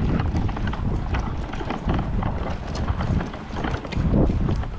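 Footsteps walking along a dirt and grass track, with wind blowing on the microphone.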